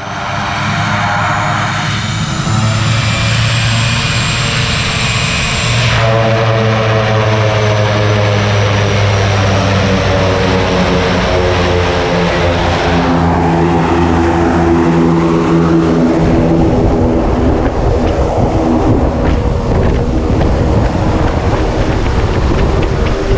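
Engine and propeller of a single-engine skydiving jump plane running steadily. Its tone jumps abruptly in pitch and level a few times.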